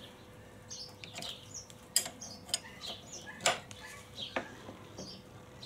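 A few sharp metallic clicks of a 22 mm spanner on the Suzuki DR650's fork top bolts as it is fitted and pulled on to loosen them, with small birds chirping faintly throughout.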